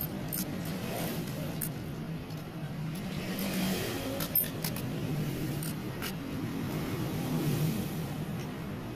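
A steady low engine hum from a vehicle, with a few light metallic clicks from hand tools.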